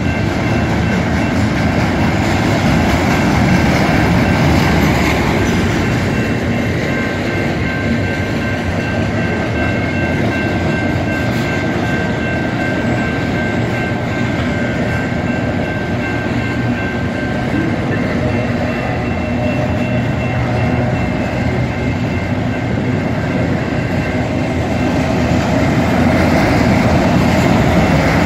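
Union Pacific mixed freight train's cars rolling past with a steady clatter and rumble of wheels on rail. Faint high steady tones ring over it and fade out about two-thirds of the way through.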